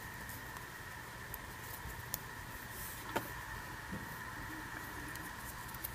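Faint handling noise of fingers lifting and wrapping cotton yarn strands, with a couple of small clicks about two and three seconds in, over a steady faint hum.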